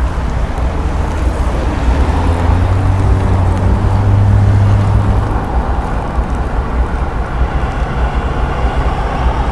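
A car's engine passing slowly nearby: its low hum grows about two seconds in and fades after about five seconds, over a steady low rumble.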